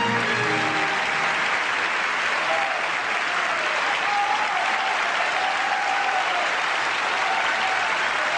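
Theatre audience applauding steadily, with music fading out in the first second.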